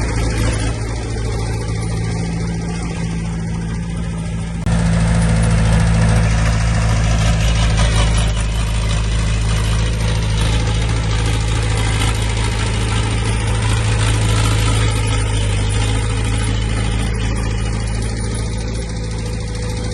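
Diesel engine of heavy earthmoving machinery running steadily, getting louder from about five seconds in.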